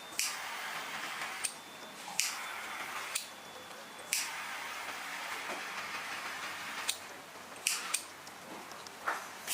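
A heat-shrink heating tool blowing with a steady hiss in several spurts of one to three seconds. Each spurt starts or stops with a sharp click, and there are a few more clicks near the end. It is shrinking heat-shrink tubing over soldered wires.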